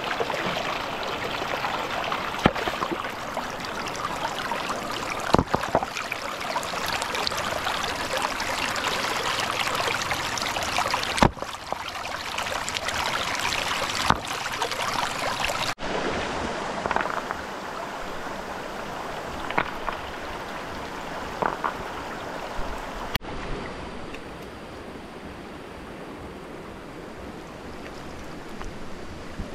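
Water running and splashing, with a few short, sharp splashes or knocks spread through it. It gets quieter after a cut about two-thirds of the way in.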